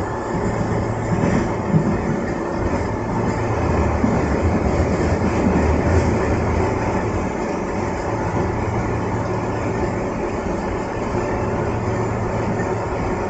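Running noise heard inside the saloon of a Keihan 600 series train in motion: the car's steady rumble on the rails, a little louder about four to six seconds in.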